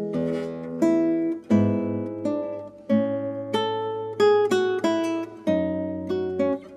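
Background music: an acoustic guitar playing a melody of plucked notes over chords, each note struck sharply and left to ring.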